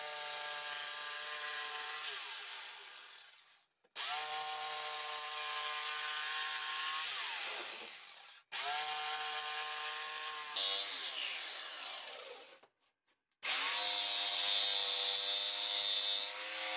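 Corded jigsaw cutting through a pine board, its motor whining over the buzz of the blade. It runs in several short stretches: each of the first three ends with the motor winding down to a stop after being switched off, and a new stretch of cutting starts about four seconds in, halfway through, and near the end. The saw is stopped again and again during a circle cut so the pivot jig can be moved.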